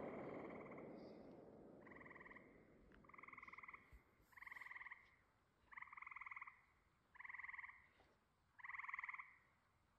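The last rumble of a firework burst fades away, then a frog calls: about six short, buzzy trills, each under a second, repeating every second and a half or so, faint.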